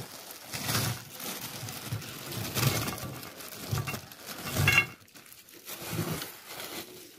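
A plastic bag crinkling and rustling as shelled walnuts are tipped out of it onto a plate, with irregular light clatter of the nuts landing.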